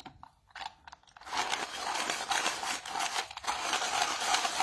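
A coloured pencil being sharpened in a pencil sharpener: a few light clicks, then from about a second in a continuous rasping as the blade shaves the pencil.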